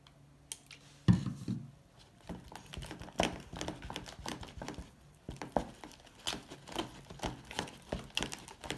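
Silicone spatula stirring and scraping a foamy glue-and-shaving-foam slime mixture in a plastic tub as it is activated, with irregular sticky clicking and squelching. A single knock about a second in.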